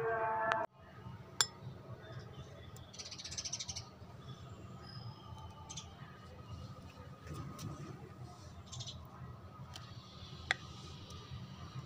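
Metal ladle clinking and scraping against a glass bowl as milky rice is ladled in: a few sharp clinks, one about a second and a half in and another near the end. Background music cuts off suddenly under a second in.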